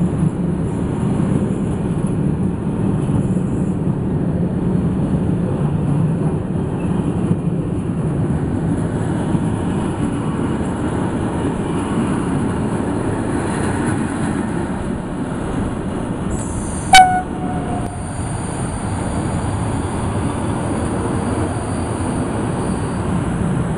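Freight train of covered sliding-wall wagons and container wagons rolling past at close range, a steady rumble of wheels on rails. About two-thirds of the way through, a single short, loud train horn toot.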